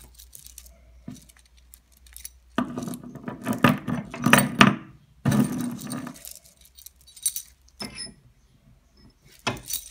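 Steel chain links clinking and jangling as the chain and its hook are handled in the hands and laid out on a wooden bench. The loudest stretch comes a few seconds in, followed by a few shorter clinks near the end.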